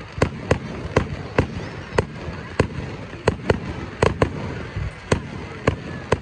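Fireworks going off: a string of about fourteen sharp bangs at uneven spacing, roughly two a second, over a steady low rumble.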